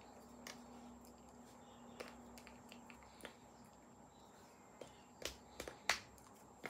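Scattered soft clicks and taps from a person signing: hands striking and brushing against each other, and the lips smacking as words are mouthed silently. They come irregularly, about ten in all, the loudest about six seconds in, over a faint steady hum.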